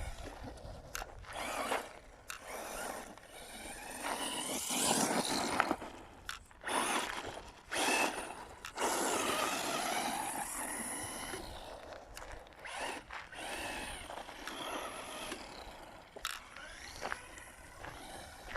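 Electric RC buggy driving over rough dirt ground, its motor whine rising and falling with the throttle, with dirt and gravel scraping under the tyres in irregular bursts.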